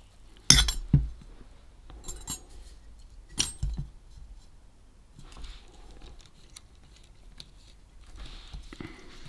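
Handling sounds at a repair bench: a sharp clink about half a second in and another about three and a half seconds in, each followed by a low knock, as a metal aerosol can of super glue activator is lifted away and handled. Quieter small clicks follow as fingers work at the circuit board.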